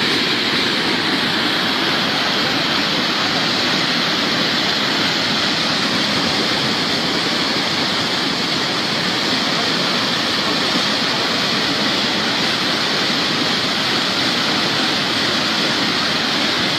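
Muddy flash-flood torrent of water, mud and debris rushing down a riverbed, a steady unbroken rush of churning water.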